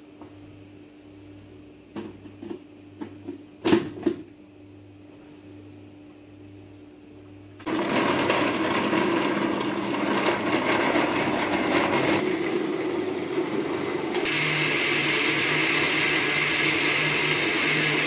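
A few clicks and knocks as the blender jar's lid is fitted and the jar set on its base, then a countertop blender starts about eight seconds in, grinding chopped coconut with water to make coconut milk. About six seconds after starting its sound shifts higher and brighter.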